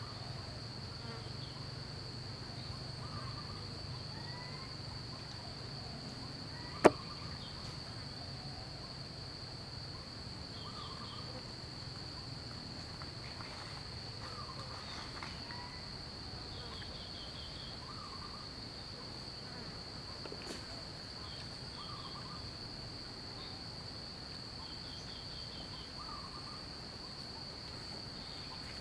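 Insects droning steadily at one high pitch, with scattered short chirps and trills over the top. A single sharp click about seven seconds in stands out as the loudest sound.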